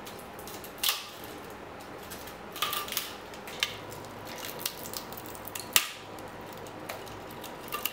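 Support material being snapped and pried off a 3D-printed silk-copper filament goblet with a hand tool: irregular sharp plastic snaps and crackles a second or two apart, over a steady low hiss.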